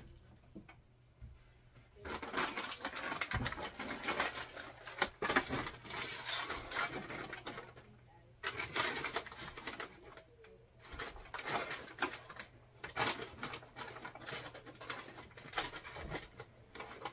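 Plastic snack bags crinkling and rustling, with light knocks of cardboard boxes being handled. It starts about two seconds in, pauses briefly about halfway, then goes on.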